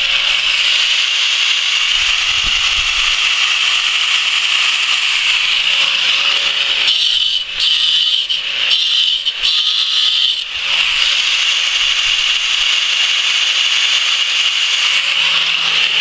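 Electric angle grinder cutting into a stone block: a steady high whine over gritty grinding noise, dipping briefly several times in the middle.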